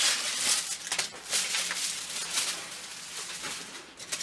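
Aluminium foil crinkling and crackling as a sheet is handled and crumpled, a quick run of crackles that thins out in the last second or so.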